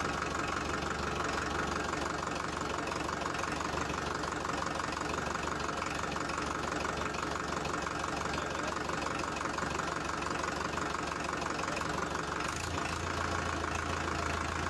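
Mini tractor's engine running steadily as it moves on. Near the end its low hum steps up a little in pitch.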